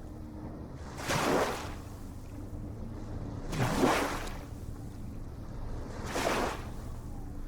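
Small ocean waves washing in three times, each a short whoosh about two and a half seconds apart, over a steady low rumble of surf.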